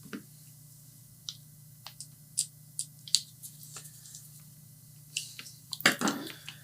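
Scattered small clicks and taps of hands handling small metal and plastic parts while assembling a D-tap power cable connector, with a louder knock and rattle about six seconds in.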